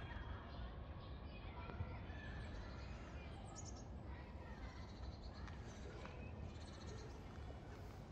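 Outdoor background ambience: a steady low rumble with faint bird chirps scattered through it.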